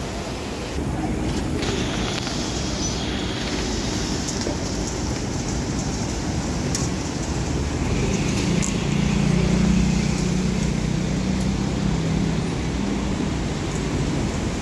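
Battered pieces deep-frying in a large wok of bubbling oil, a steady sizzling hiss. A motor vehicle's engine hum rises and fades around the middle.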